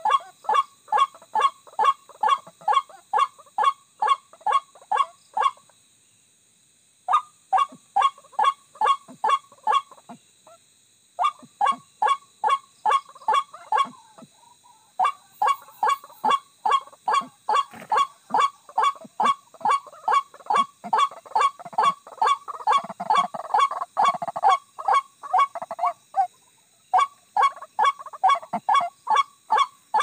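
White-breasted waterhen (ruak-ruak) lure call: short croaking calls repeated fast and evenly, about three a second, in long runs with brief breaks.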